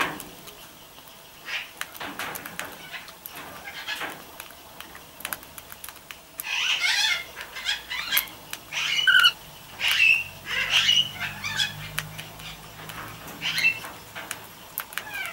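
Cockatiels calling in short squawks and chirps, sparse at first, then a dense run of calls from about six seconds in that tails off near the end.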